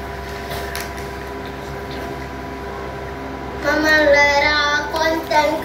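A child's high voice, loud, starting about three and a half seconds in. Before it there is a steady hum with a few faint clinks of a metal spoon in a glass bowl.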